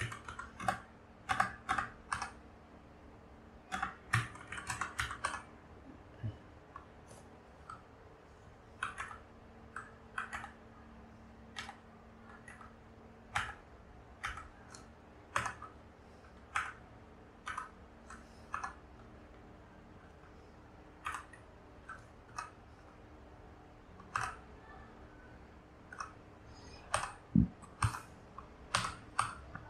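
Keychron K4 mechanical keyboard keys pressed one or a few at a time, sharp clacks at irregular intervals rather than continuous typing, with a low bump near the end.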